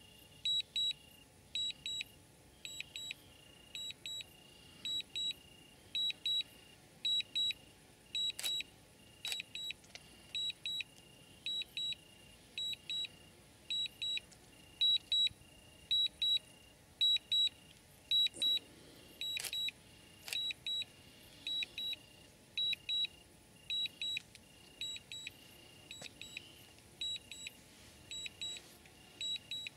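Crickets chirping: short, high, pure chirps about one and a half a second, not quite evenly spaced, with a lower, longer chirp between them. A few sharp clicks sound near the middle.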